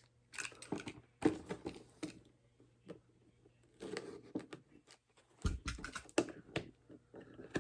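An action-figure box of card and plastic being opened by hand: irregular clusters of clicks, crinkles and scrapes with short pauses between them, busiest about two thirds of the way through.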